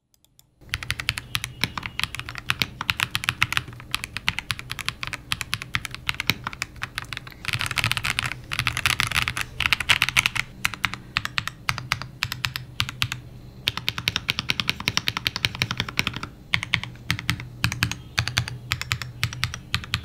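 Fopato F75 mechanical keyboard with TTC Neptune linear switches being typed on in a fast, continuous stream of keystrokes, with a light, clacky sound rather than a deep thock. The typing gets denser and louder about eight seconds in and again around fourteen seconds.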